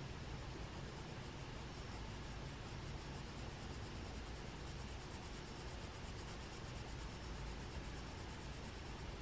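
Faint, steady scratching of a graphite shading pencil rubbing across drawing paper.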